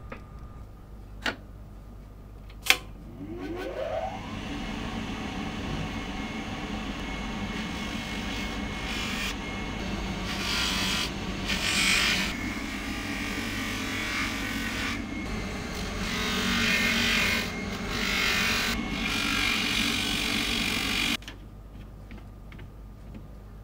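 Two sharp clicks, then a small high-speed rotary tool spins up with a rising whine about three seconds in. It runs on the gold piece, louder and softer as the pressure changes, and stops abruptly near the end.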